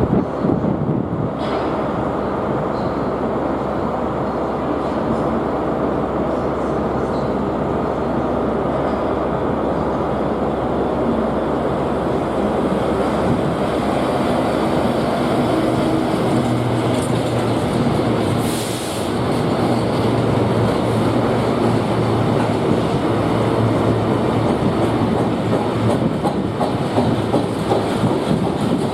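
Diesel-hauled freight train running past, a steady mix of engine and wheel-on-rail noise; a low, steady engine hum comes in about halfway through.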